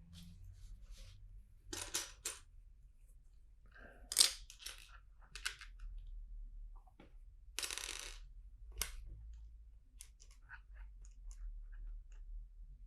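Plastic LEGO bricks clicking and clattering as pieces are handled during the build. There are scattered sharp clicks, the strongest about four seconds in, and a brief rustle a little past the middle.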